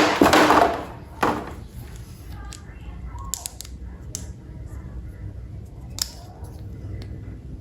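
Handling of plastic toy-train parts and packaging: a loud rustling scrape at the start and another about a second later, then a few scattered light clicks.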